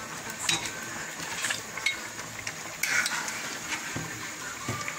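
A metal ladle and a plate knock and clink against a cooking pan while sliced eggplant is pushed into simmering kare kare sauce and stirred in. There are several sharp clinks, roughly a second apart, over a steady hiss.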